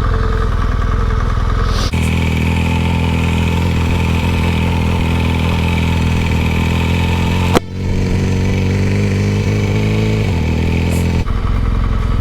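Motorcycle engine running under way, its note stepping to a new steady pitch a few times. A sharp click comes about seven and a half seconds in.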